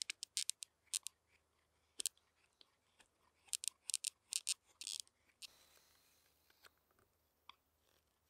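Carving knife slicing thin shavings off a wooden spoon bowl: short, crisp cuts, a few singly and then a quick run of them about three and a half to five seconds in, before a fainter, softer stroke.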